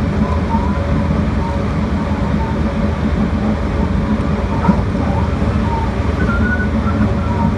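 Steady rumble of a train running, heard inside the passenger carriage.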